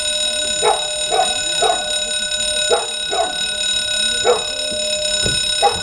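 A dog barking about seven times in short, irregular barks over a steady, multi-pitched electronic alarm tone.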